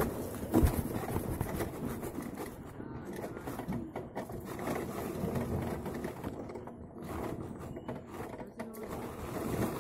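Mountain bike rattling as it rolls down a rough dirt trail, its tyres running over dirt and ruts, with a loud knock about half a second in.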